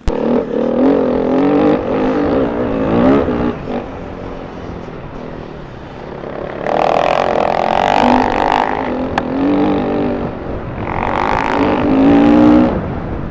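Enduro motorcycle engine revving up and down, its pitch rising and falling repeatedly, with two louder, higher-revving spells about halfway through and near the end.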